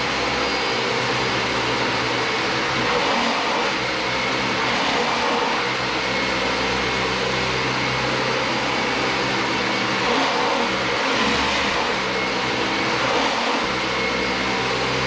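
Dyson DC25 Animal upright vacuum cleaner running steadily, a rush of air with a high motor whine, as it is pushed over the floor in two passes.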